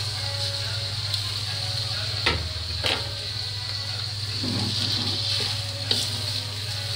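Wet, freshly washed rice sizzling in hot oil in a large aluminium pot while a wooden spatula stirs it: the rice is being fried with the whole spices before water is added for pulao or biryani. A couple of sharp knocks of the spatula on the pot come a little over two seconds in and again just before three seconds, over a steady low hum.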